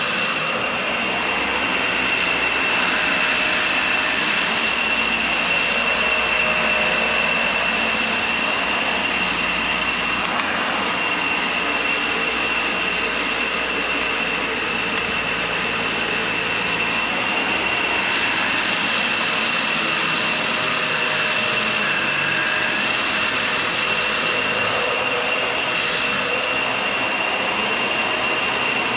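Vacuum cleaner running steadily over a shag rug, a high-pitched whine held constant over its rushing noise.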